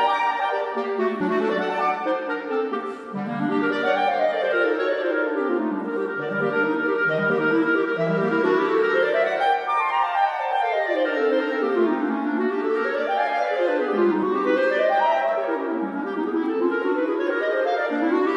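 Two clarinets playing a duet of fast runs and arpeggios that sweep up and down, the two lines weaving over and under each other.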